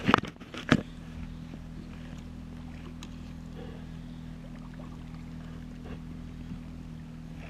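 A few sharp knocks in the first second, then a kayak paddle stroking through lake water with faint, scattered splashes over a steady low hum.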